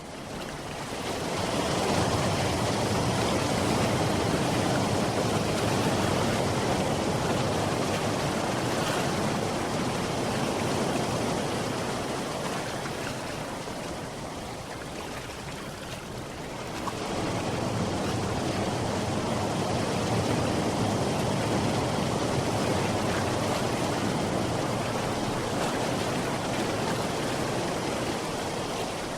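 Sea surf washing in a steady rush of water noise, easing off about halfway through and building up again.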